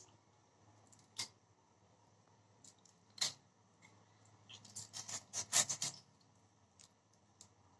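Short, sharp slicing and scraping strokes as a magur (walking catfish) is cut into pieces on a boti, a curved blade held upright on the floor. Single strokes about a second and about three seconds in, then a quick run of them about five seconds in.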